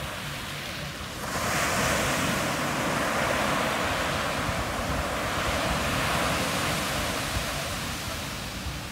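Ocean surf breaking and washing up a sandy beach: a rush of water that swells about a second in and slowly ebbs away near the end.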